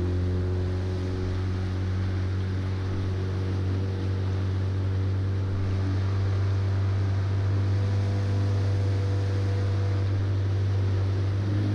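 A small boat's engine running steadily under way: an even low drone with wind and water hiss over it.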